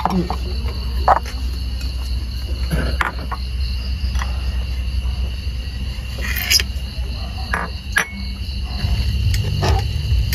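Crickets trilling steadily over a low hum, with a few short clinks and knocks of bowls and spoons being handled.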